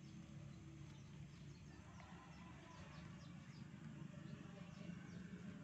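Near silence: faint outdoor background with a steady low hum and soft, high, short chirps scattered through it.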